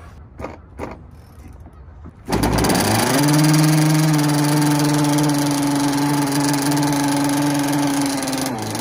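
A 30cc two-stroke gasoline engine in a 4-foot RC speed boat starts about two seconds in and settles at once into a steady idle. A couple of light clicks come before it.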